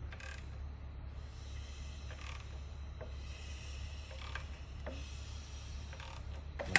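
Timing chains, sprockets and cam phasers of a bare Ford 5.4L three-valve V8 being turned slowly by hand at the crankshaft: faint, scattered metallic clicks over a steady low hum, with a sharper click near the end.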